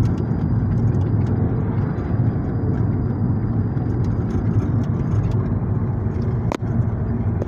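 Steady low rumble of a car driving, road and engine noise heard from inside the cabin, with one sharp click near the end.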